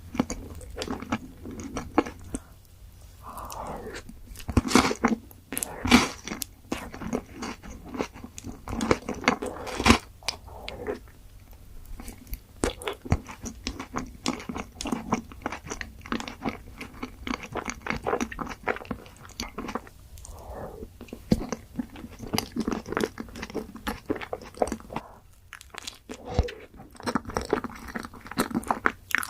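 A person biting and chewing chocolate-coated ice cream bars, with sharp crunches and crackles of the chocolate coating, pausing briefly a few times.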